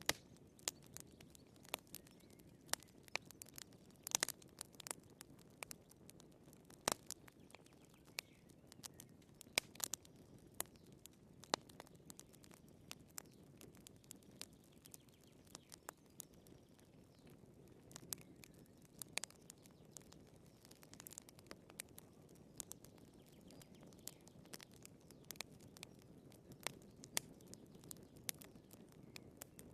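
Wood fire crackling: irregular sharp snaps and pops of burning firewood over a low, steady hiss of the flames.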